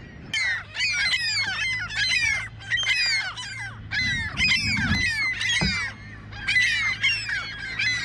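A gull colony calling all at once: a dense chorus of many overlapping cries that slide downward in pitch, starting abruptly just after the start and never letting up.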